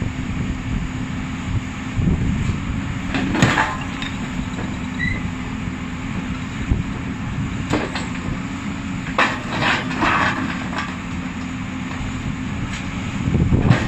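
Excavator-mounted Fractum 100 rock-breaking rig working a diabase boulder: a steady machine drone with a steady hum, broken by a few short bursts of noise, one about three and a half seconds in and several between eight and ten seconds.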